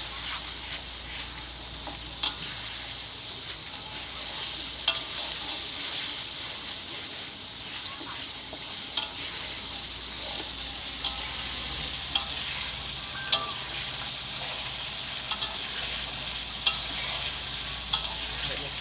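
Ground spice paste of garlic, shallot, ginger and galangal sizzling steadily in hot oil while being stirred, with irregular sharp clicks of the utensil against the pan.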